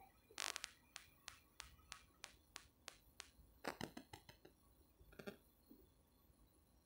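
Faint, sharp clicks at an even pace of about three a second for some three seconds, then a few irregular clicks.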